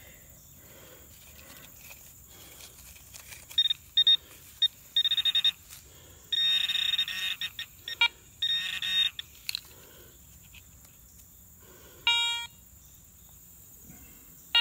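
A handheld metal-detecting pinpointer probing loose soil in a dig hole, giving a run of high buzzing alerts, some short and some about a second long, as it closes in on a target. About twelve seconds in comes one shorter beep with a different, lower tone.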